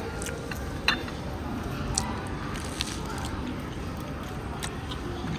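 Lounge ambience: a steady low hum of room noise with a murmur of background voices, and a few light clicks about one, two and three seconds in.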